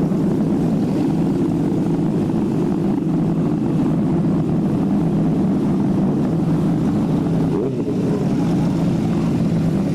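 Motorcycle engine running with a loud exhaust, held at a steady note.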